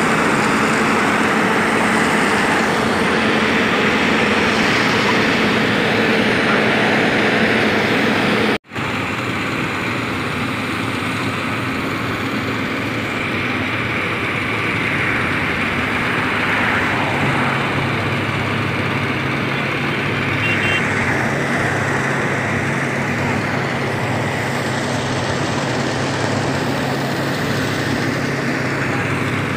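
Engines of heavy construction machinery (hydraulic excavators and a mobile crane) running steadily. The sound cuts out for an instant about a third of the way in, and a steady low engine hum becomes clearer from a little past halfway.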